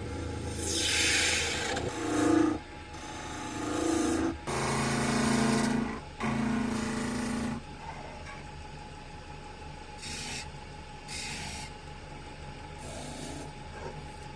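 A woodworking machine's motor running steadily while its cutter rasps through wood in several bursts, the longest in the first half and shorter ones near the end.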